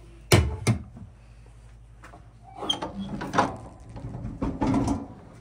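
Two sharp knocks, then the latch of an outdoor wood boiler's steel firebox door rattling and the heavy door clanking and scraping open over about two and a half seconds.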